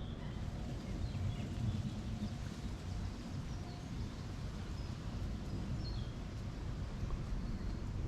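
Birds chirping here and there, short faint calls over a steady low rumble of outdoor ambience.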